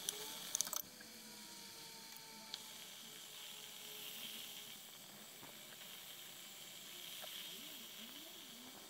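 Pineapple pieces simmering in a pan of reducing sugar syrup: a faint, steady sizzling hiss as the syrup thickens, with a few light clicks in the first second.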